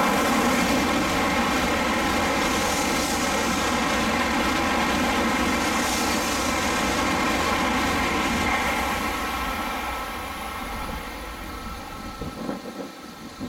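N700-series Shinkansen passing through the station at speed: a loud, steady rush of air and wheels with a layered hum of steady tones, fading away about ten seconds in as the last cars go by.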